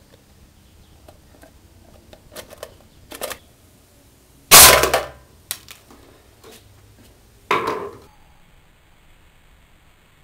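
Homemade compressed-air dart rifle fired twice, about three seconds apart: each shot is a sharp crack with a short tail, the first the louder. A few light clicks come just before the first shot.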